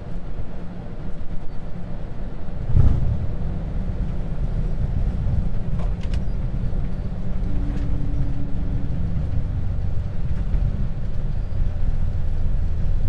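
Airbus A220 on its landing rollout, heard in the cockpit: a steady low rumble of the wheels on the runway and the engines, with one heavy thump about three seconds in.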